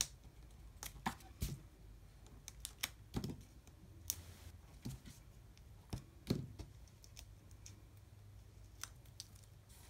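Faint, scattered clicks and light rustling of cardstock being handled, as a small paper banner is pressed and adjusted onto a card on a work mat.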